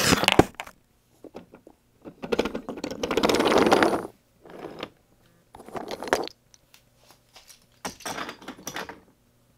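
Handling noise: several bursts of rustling and scraping, the longest about two seconds, with scattered clicks and knocks in between.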